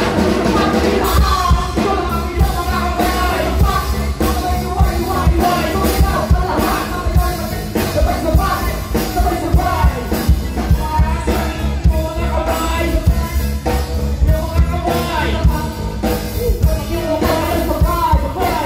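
Live band with a drum kit playing loudly while rappers perform vocals on microphones through the PA system.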